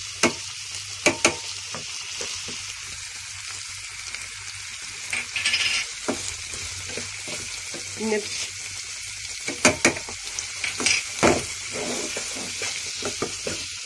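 Chopped chicken, green capsicum and tomato sizzling in oil in a nonstick frying pan, stirred with a wooden spatula that scrapes the pan and gives a few sharp knocks against it.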